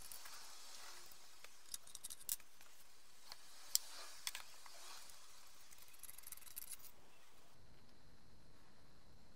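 Faint clicks, taps and scrapes of the metal parts of an old carbide bicycle lamp being handled and taken apart, with one sharper click just under four seconds in.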